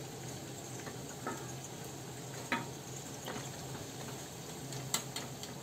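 Semolina cutlets sizzling steadily in hot oil in a kadhai, with about four light clinks of a steel slotted spoon against the pan as the cutlets are lifted out.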